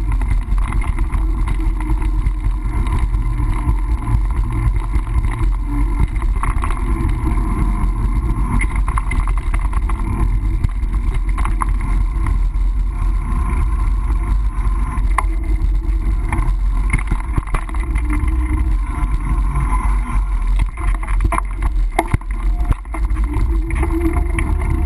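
Steady low rumble of wind and rolling noise from a bicycle ride, picked up by a GoPro camera, with scattered clicks and rattles throughout.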